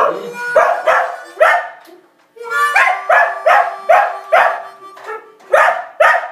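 Dog 'singing' the blues: a rhythmic run of loud, pitched howling barks, about two or three a second, with a short pause about two seconds in, over a held harmonica note.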